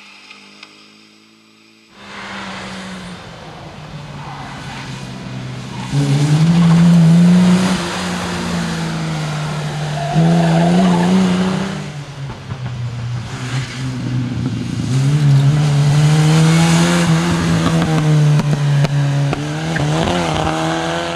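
Historic rally cars, a Jaguar Mk2 saloon among them, driven hard through corners one after another, engines revving up and dropping back as they shift gears, with some tyre squeal. The first two seconds are quieter, before the engines build up.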